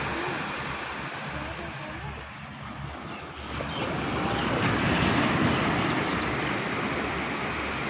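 Sea waves washing onto a beach, with wind buffeting the microphone. The wash fades a little about two seconds in, then a wave rushes in louder around five seconds in.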